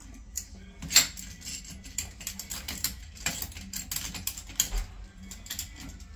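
Irregular clicking and light knocking of plumbing hand tools and pipe fittings being worked, with one sharper knock about a second in.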